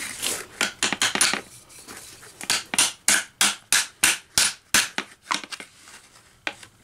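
A hammer striking the end of the armature shaft of an electric engine cooling fan motor, metal on metal, to drive the armature out of its bearing. The sharp blows come in a quick run of about three a second, with one more near the end.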